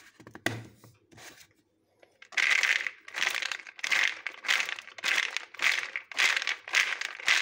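Plastic portable blender bottle with milk and oats inside being shaken back and forth by hand: rhythmic swishing sloshes, about two a second, starting about two seconds in, with a few light plastic clicks before.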